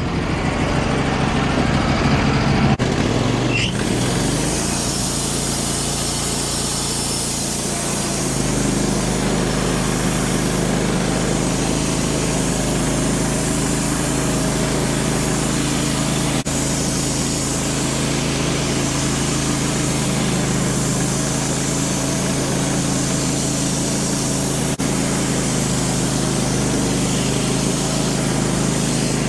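Wood-Mizer LT15 band sawmill running under load, its engine and band blade going steadily as the blade cuts through a black cherry log. The engine note shifts in the first few seconds and again about eight seconds in, then holds steady.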